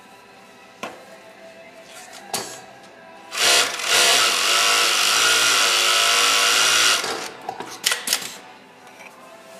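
Kingtex cylinder-bed industrial sewing machine running at speed for about three and a half seconds, starting about a third of the way in, its pitch wavering slightly. A few sharp clicks come before and after the run.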